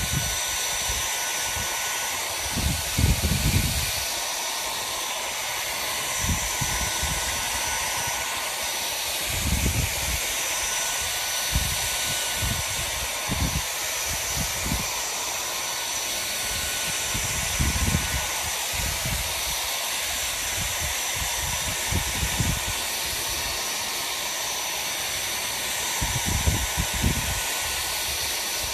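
Hair dryer blowing steadily, a loud hiss with a faint steady whine from its motor, with irregular low rumbles every few seconds.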